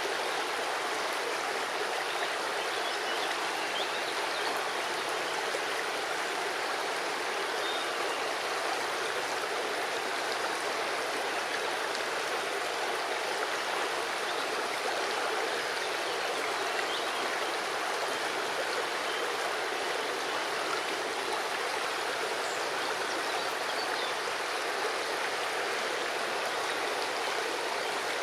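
River water flowing over and around stones, a steady rushing babble with no change in level.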